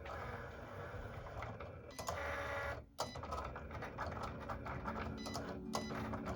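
Cricut cutting machine running, a printer-like mechanical whirring with a brief break about three seconds in.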